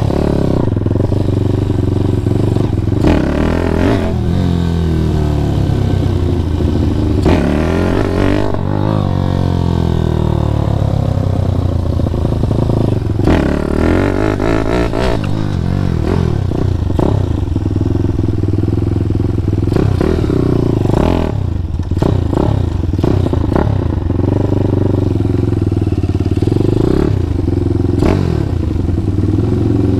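A Grom-clone mini motorcycle's small single-cylinder engine running under a rider, its pitch rising and falling again and again as it speeds up and slows down.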